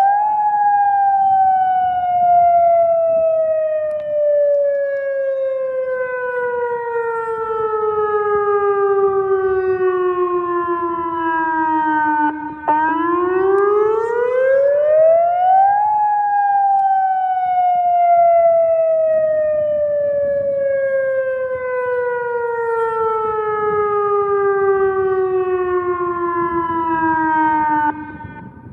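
Outdoor tornado warning siren sounding during a test: a loud wailing tone that rises quickly, falls slowly over about twelve seconds, rises again and falls slowly again, then cuts off sharply near the end.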